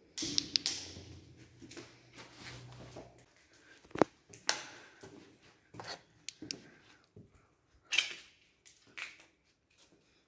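Footsteps crunching and scuffing over a floor littered with debris, with irregular sharp cracks and knocks; the sharpest crack comes about four seconds in. A low hum sounds under the first three seconds.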